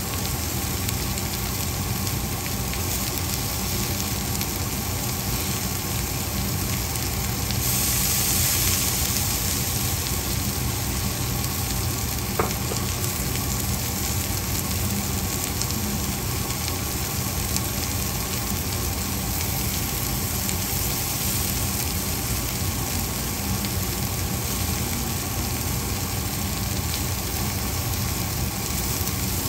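Green beans and onions sizzling steadily as they fry in a pan, over a low steady hum. The sizzle swells for a couple of seconds about 8 seconds in, and there is a single sharp click about 12 seconds in.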